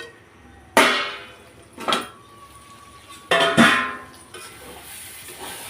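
Metal cookware clanging: four ringing strikes as a lid and utensil knock against a metal kadhai. Near the end a steady sizzle of the tomato masala cooking in the open pan comes up.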